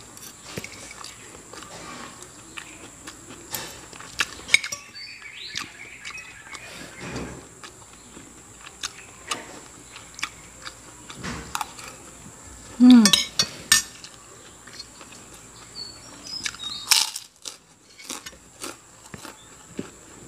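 Metal spoon and fork clinking and scraping against a ceramic plate while someone eats, in scattered sharp clicks. About thirteen seconds in, a short falling voice-like sound is the loudest thing, and a brief noisy burst follows a few seconds later.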